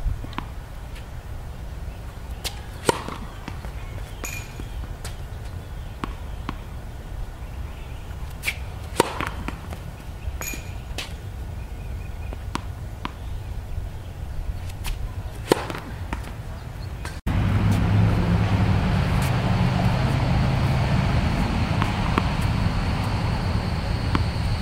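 Tennis racket strings striking the ball on practice serves: sharp cracks about every six seconds, with fainter ticks of balls bouncing between them. About two-thirds of the way in the cracks stop and a louder steady rush with a thin high whine takes over.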